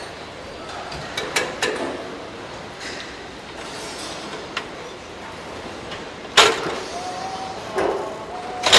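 Factory assembly-line noise with a few sharp clanks of metal as a steel chassis frame is worked on its jig. The loudest clank comes about six seconds in and another near the end.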